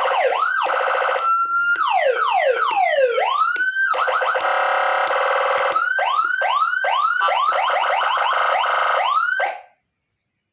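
Twelve-sound triple-tone electronic siren switching between patterns: fast up-and-down yelps, a short steady tone, a slow wail falling and rising again, a dense rapid warble, then a run of quick rising whoops. Several tones sound at once, each sweeping in step. It cuts off suddenly shortly before the end.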